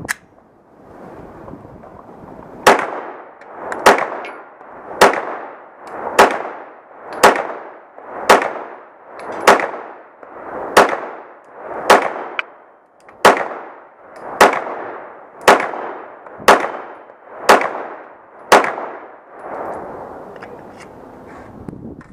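A 9mm Glock 17 pistol fired fifteen times at a steady, unhurried pace, about one shot a second, using Russian brown-box ammunition. Each report has a short ringing tail.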